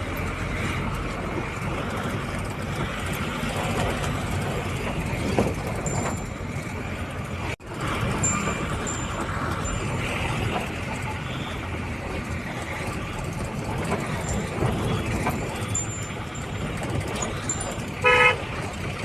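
Roadside traffic: a steady wash of vehicles with indistinct voices in the background, and a vehicle horn honking briefly near the end.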